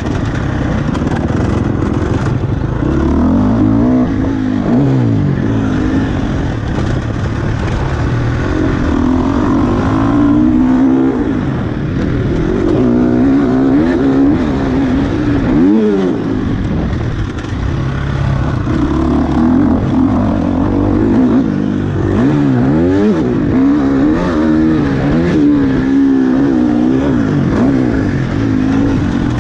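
KTM 350 SX-F single-cylinder four-stroke motocross engine being ridden hard, its pitch rising and falling over and over as the throttle is opened and shut, with a sharp rev and drop about sixteen seconds in.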